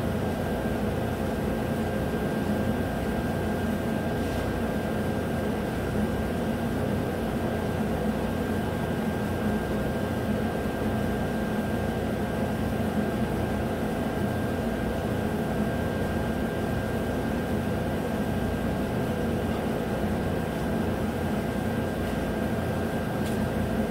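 A steady mechanical hum with a faint high whine, unchanging throughout.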